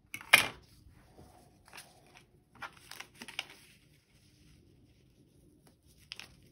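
A plastic quilting ruler knocks sharply against a cutting mat once near the start, followed by soft crackles and rustles of foundation paper and fabric being handled and folded, with a few small clicks near the end.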